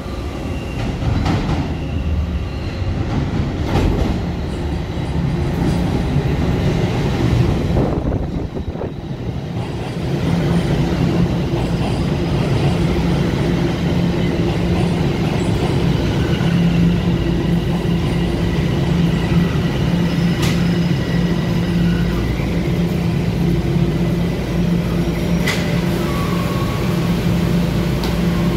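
TTC subway train pulling into an underground station platform. Its wheels clatter and click on the rails for the first several seconds, then about ten seconds in it settles into a steady low hum from its motors and onboard equipment as it slows and stands.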